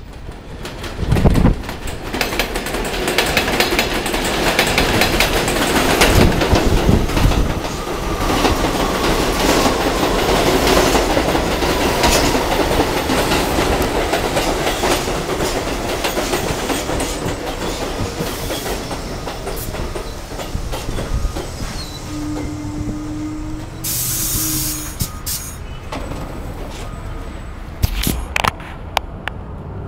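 New York City subway train running past, its wheels clicking over rail joints. A short steady tone sounds about three-quarters of the way through, together with a brief hiss.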